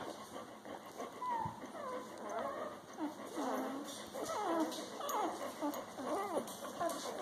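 A litter of newborn puppies squeaking and whimpering while they nurse, many short thin cries overlapping, getting busier and louder about halfway through.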